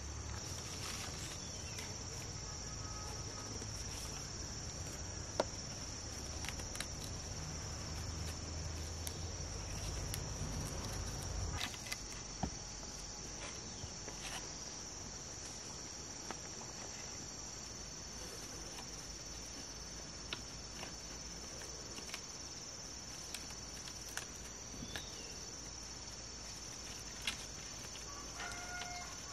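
Forest insects shrilling in a steady, high, unbroken chorus, with scattered light clicks and taps over it. A low rumble underneath stops about twelve seconds in.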